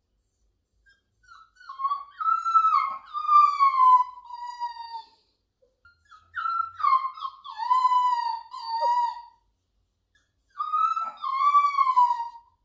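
Miniature schnauzer puppy whining in three long, drawn-out cries that waver and fall in pitch, about one, six and eleven seconds in.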